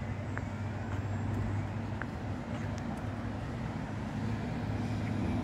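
An engine running steadily at idle: a low, even hum over outdoor background noise.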